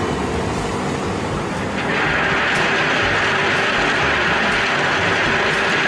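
Heavy dump truck's diesel engine running as the loaded bed tips up. From about two seconds in, crushed stone pours out of the tailgate as a loud steady rush over the engine.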